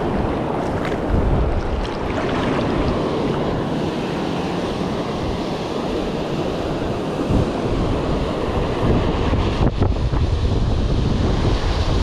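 Ocean surf washing and breaking around a wading angler, with wind buffeting the microphone; the low rumble of the wind gets heavier in the last few seconds.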